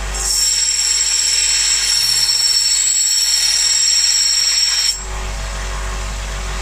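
Power tool grinding or sanding the steel of an axe head, a steady high-pitched whine with hiss, to put an edge on it. It cuts off about five seconds in, leaving a low hum.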